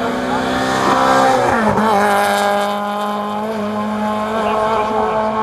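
Rally car engine at high revs passing by on a hill climb course. The pitch falls about a second and a half in as it goes by, then holds steady as it pulls away.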